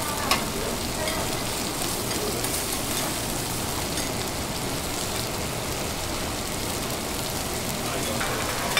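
Food sizzling steadily on a hot teppanyaki griddle, with one sharp click about a quarter of a second in.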